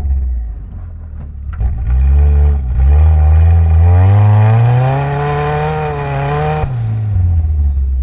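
Turbocharged four-cylinder engine of a 500 hp Mitsubishi Lancer Evolution X in second gear, with a few sharp cracks and a short blip of revs at first. About three seconds in it pulls up from around 2,000 rpm as boost builds, with a rising high turbo whistle. Engine note and whistle cut off sharply as the throttle is lifted, and the revs drop away.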